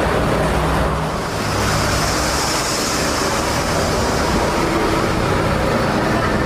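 Steady road traffic noise with engine rumble, and a louder hiss as a vehicle passes from about one and a half to four seconds in.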